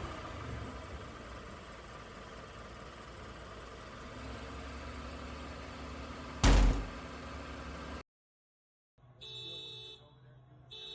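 A single loud crash about six and a half seconds in, over steady background noise. After a cut, an electronic alarm beeps on and off, each beep about a second long.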